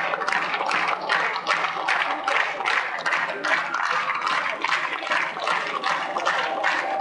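Theatre audience clapping in unison, a steady beat of about two claps a second.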